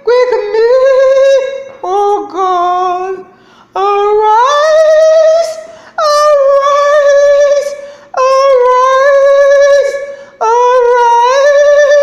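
A woman singing long, high held notes with no clear words. The notes come in phrases of about two seconds, each sliding up into a steady pitch, with short breaths between.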